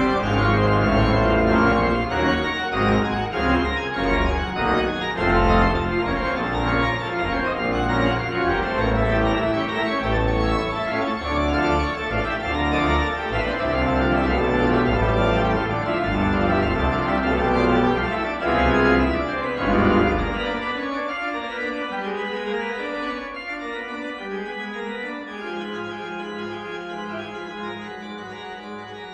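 Johannus digital organ playing a toccata, loud with deep pedal bass. About twenty seconds in, the bass drops away and the playing goes on more softly in the upper range, growing quieter towards the end.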